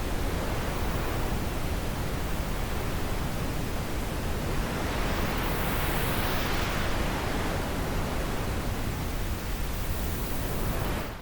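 Wind blowing in a steady rushing hiss, with a gust swelling and easing off about halfway through. The sound begins to fade out right at the end.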